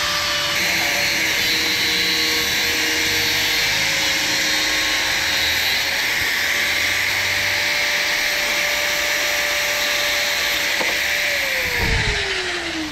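Electric angle grinder cutting through a motorcycle's black plastic rear mudguard: a steady high whine over a loud cutting hiss. Near the end the grinder is let off and the whine falls as the disc spins down.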